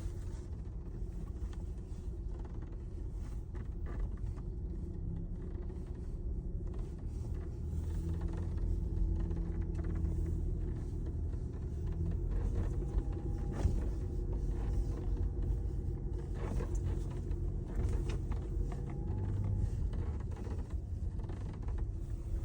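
Steady road and tyre rumble inside a moving Chery Tiggo 8 Pro Max, with the sunroof giving scattered faint creaks and ticks over it: a creaking sunroof fault.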